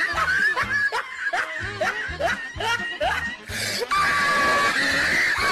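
Upbeat background music with a steady beat, mixed with quick bursts of snickering laughter.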